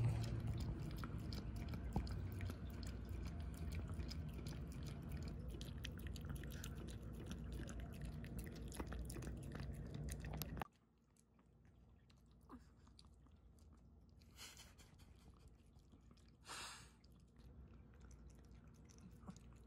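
A small dog (Pomeranian) chewing and smacking soft, wet food from a ceramic bowl: many quick small clicks. About ten seconds in the sound drops off suddenly to a much quieter level, with only a few faint sounds after.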